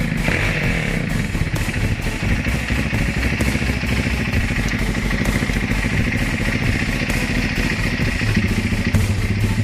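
Honda Tiger's single-cylinder four-stroke engine running at a steady low speed through a racing exhaust, a fast even pulse. About eight seconds in the low note grows a little stronger.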